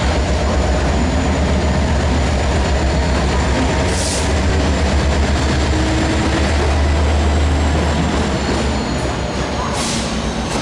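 Diesel locomotive passing close along the platform, its engine's deep, pulsing rumble growing loudest just past the middle as it goes by. A couple of short hissing clicks come in about four seconds in and again near the end.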